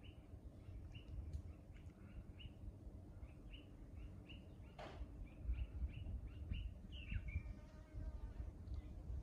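A bird repeats a short rising chirp about twice a second over a low rumble. A single sharper call cuts in about halfway through, and a falling call follows a couple of seconds later.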